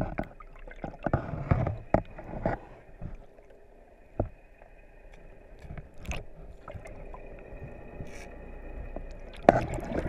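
Muffled underwater sound picked up by a camera held under water: a steady faint hum with scattered knocks and thumps against the camera, then a loud rush of water near the end as it is brought up toward the surface.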